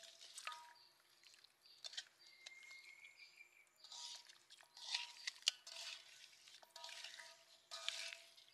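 Hands kneading raw chicken legs in a wet marinade in a metal pan, the meat sliding and slapping in irregular bursts of handling noise.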